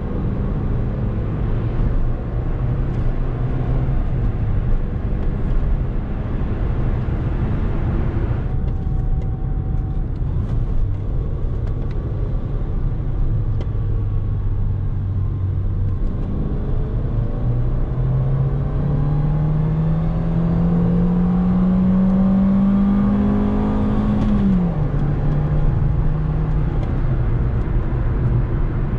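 2007 Ford Fusion's 1.4-litre 16-valve inline-four petrol engine running under way, with road noise. Past the middle the engine note climbs steadily as the car accelerates in gear, then drops sharply near the end at an upshift.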